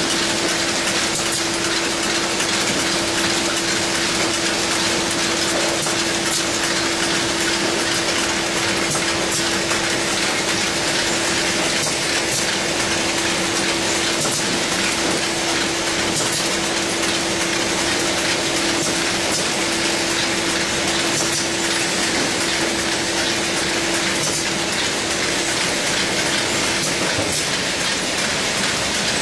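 Automatic bottle cartoning machine running continuously: a dense, steady clatter of gears and mechanisms, with a steady hum that stops near the end.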